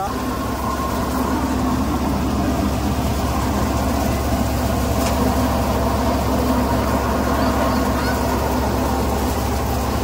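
Tractor-driven paddy thresher running at working speed: the tractor engine and the threshing drum make a continuous, even drone.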